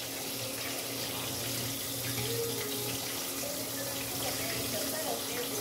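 Floured fish pieces frying in hot oil in a covered frying pan: a steady sizzling hiss, with a low steady hum underneath.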